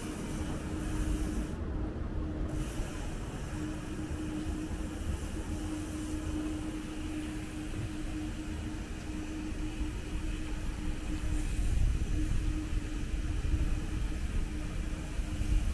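Steady low rumble and hiss of street noise heard from a bicycle, with a steady low hum, growing somewhat louder near the end.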